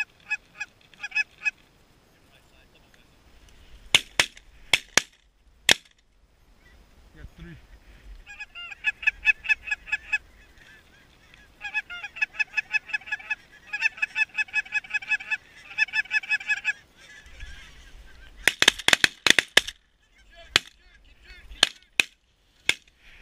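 Geese honking in rapid, evenly spaced runs of notes, with the calling stopping and starting several times. Shotgun shots crack out, a few around four to six seconds in and then a dense volley near the end followed by several single shots, with low wind rumble on the microphone.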